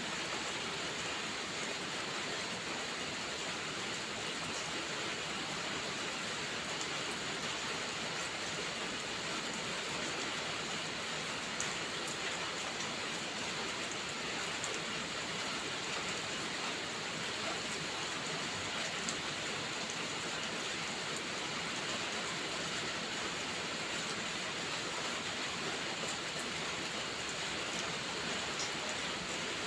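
Heavy rain falling in a steady, even hiss, with a few faint sharp crackles from a wood fire scattered through it.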